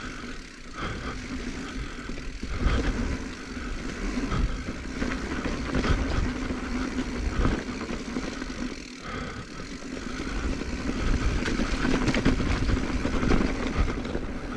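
2021 Giant Trance X 29 3 full-suspension mountain bike rolling down a rough dirt trail: steady tyre and rolling noise, with the bike knocking and rattling over rocks and roots.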